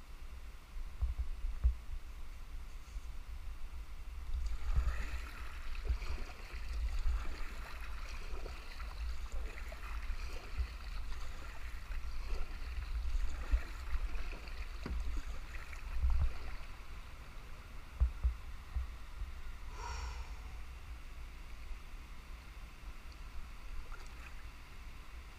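Double-bladed kayak paddle strokes dipping and splashing in calm river water, the splashing coming and going irregularly over a steady low rumble on the camera microphone.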